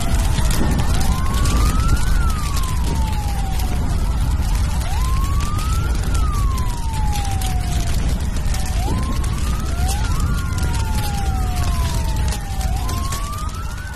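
Emergency vehicle siren wailing in slow sweeps, each rising for about a second and falling away for about two, repeating roughly every four seconds over a heavy low rumble.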